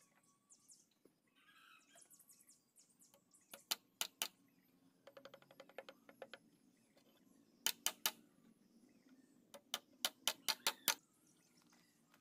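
Claw hammer tapping nails into a wooden cabinet frame: sharp knocks in quick groups of about four to seven strokes, with short pauses between the groups.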